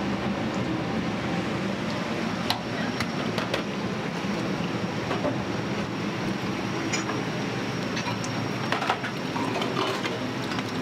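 Steady rushing noise of a gas wok burner running in a commercial kitchen, with scattered sharp clinks of a metal ladle and utensils against the wok.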